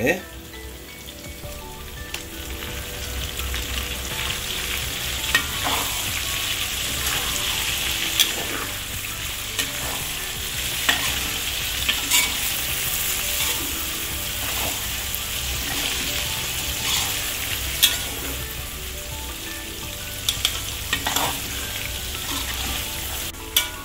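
Salted carp pieces frying in oil in a wok, a steady sizzle that swells over the first few seconds, with a metal spatula scraping and knocking against the wok every few seconds as it stirs.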